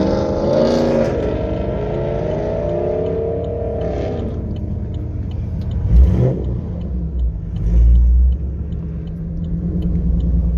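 Chevrolet Camaro SS V8 engine and exhaust while driving, freshly base-tuned: the revs rise and fall over the first few seconds, then settle into a steady low drone, with two loud low thumps about six and eight seconds in.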